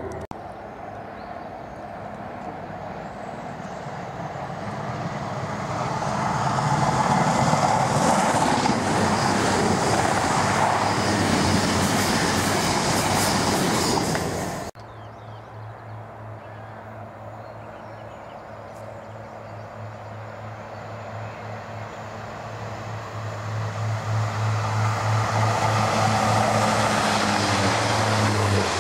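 Two passing trains. The first one's rush builds to a loud, steady noise and then breaks off suddenly just under halfway through. The second, a purple Northern multiple-unit passenger train, comes in with a steady low engine drone that grows louder until it is passing close by near the end.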